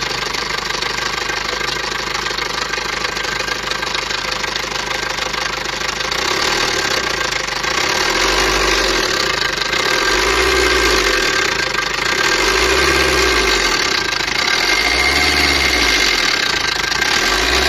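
Maruti Ritz engine running with a loud timing chain rattle, which the mechanic puts down to a worn, stretched timing chain on an engine with about 290,000 km and poorly maintained oil. About six seconds in, a deep swell starts rising and falling roughly every two seconds.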